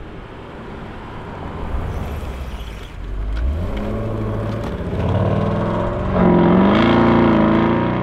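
Twin-turbo 4.0-litre V8 of a tuned Audi RS6 Performance Avant, rumbling low as it approaches and then accelerating hard past and away. The engine note climbs in pitch and is loudest near the end.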